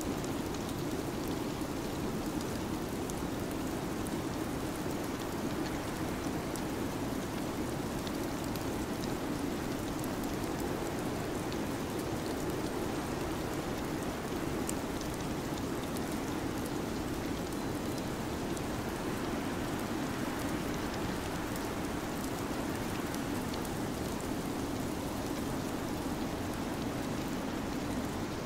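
Steady, unchanging hiss like rain or storm ambience, fullest in the low-middle range, with faint scattered ticks.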